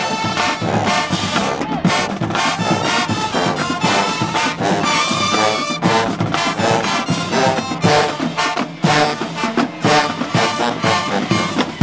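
A brass band playing a loud, fast tune with rhythmic punches.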